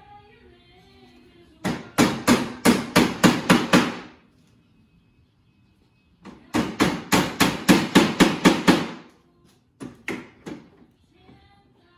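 Hammer driving wooden dowels into the joints of a clamped wooden window sash. Two runs of about a dozen quick blows each, roughly five a second, are followed near the end by a few single taps.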